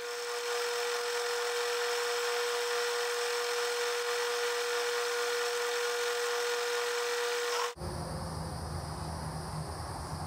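Metal lathe running and turning down a steel bolt's shank: a steady hiss from the cut with a steady whine from the machine. About three-quarters of the way through it cuts off abruptly, and a quieter low hum with a faint high chirring follows.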